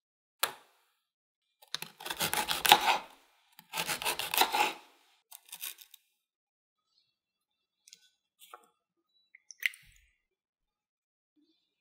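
Dry ladyfinger cookie being broken and crumbled by hand on a bamboo cutting board: crisp crackling crunches in two main bouts about two and four seconds in, with a smaller one after, and faint light taps later.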